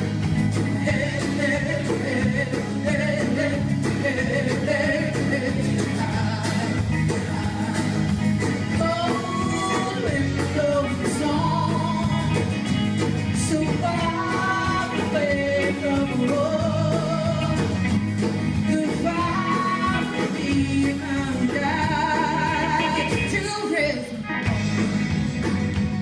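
Live band music with singing: guitars, drum kit and bass playing a steady folk-rock song, joined by Dene frame hand drums.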